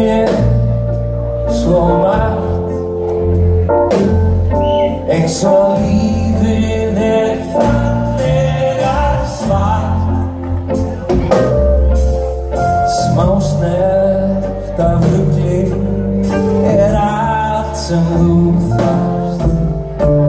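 Live rock band playing a song: singing over acoustic guitar, electric guitar, keyboard, bass and drum kit, with a steady drum beat.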